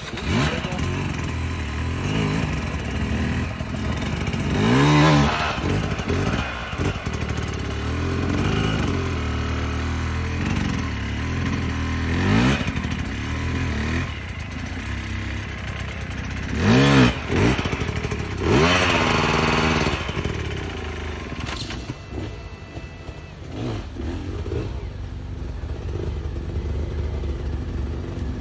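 Enduro dirt bike engines revving hard in short bursts as they claw up a steep hill climb, the revs rising and falling sharply four or five times over a steady lower engine note.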